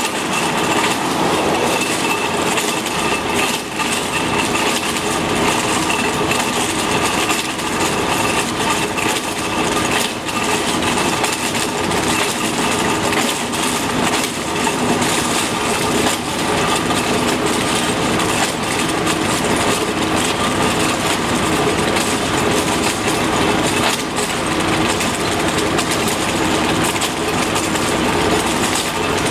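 Wheeled tractor's diesel engine running steadily under load while its chain trencher cuts open the asphalt, with a continuous grinding rattle of the cutting teeth.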